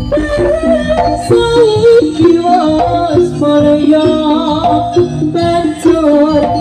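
Live jaranan (kuda lumping) dance music from a Javanese gamelan ensemble played loud through a PA system: steady drum strokes under a wavering, bending melody line.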